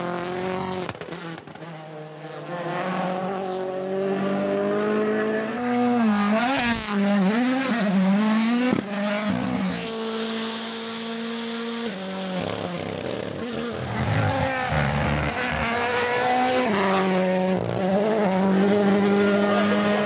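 Rally1 rally cars driven hard on a stage, the engine note rising and falling through gear changes and lifts. The sound changes abruptly several times as different passing cars are cut in.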